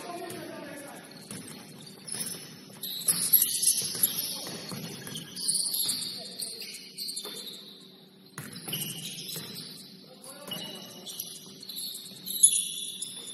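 Basketball shoes squeaking on a hardwood gym floor: a run of short, high squeaks coming in clusters, with a few thuds among them, the sharpest near the end.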